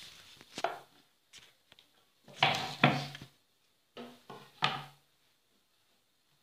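A round wooden bread board and kitchen utensils being handled and set down: a few short knocks and scrapes, separated by quiet.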